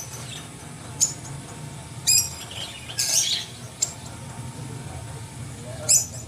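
A small bird chirping: short, high calls spaced out a second or so apart, with a busier cluster about two to three seconds in and another near the end, over a steady low hum.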